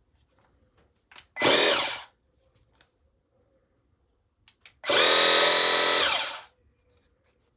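Motor and pump of a Parkside PDRA 20-Li D4 20 V cordless pressure washer switched on twice: a short run of under a second, then a run of about a second and a half. A small click comes just before each run.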